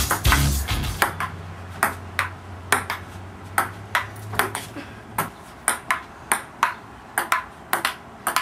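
Ping-pong ball rally: the celluloid ball clicking sharply off paddles and the tabletop, about two to three hits a second in an uneven rhythm.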